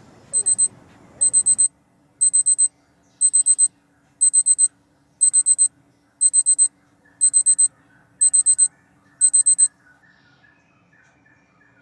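Electronic alarm clock beeping: high-pitched beeps in quick groups of four, one group about every second, ten groups in all before it stops.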